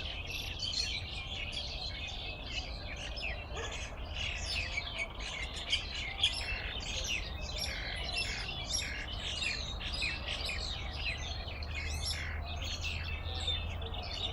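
Small birds chirping and twittering continuously, many short overlapping calls, over a steady low rumble.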